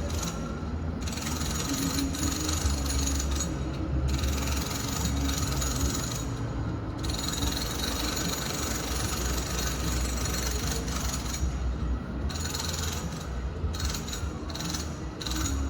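Home renovation noise heard from another room: continuous mechanical work noise over a steady low rumble, the higher part cutting out briefly three times.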